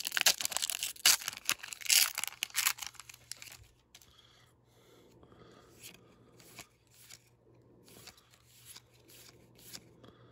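Foil Pokémon booster pack wrapper torn open and crinkled for about the first three and a half seconds, then a run of faint, soft card slides as the trading cards are moved one by one through the stack.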